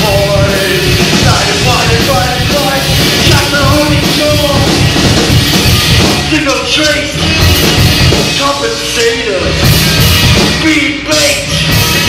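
A rock band playing loud live, with drums and pitched instrumental or vocal lines over them.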